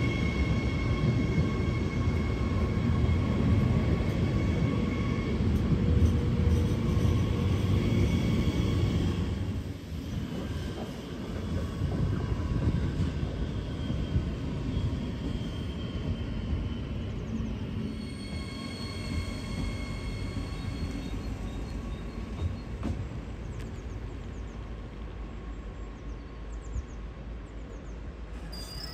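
Electric passenger trains at a station: a low rumble with a steady high whine over it, loud for the first nine seconds or so. It then drops to quieter, more distant rail noise with a few thin wheel squeals.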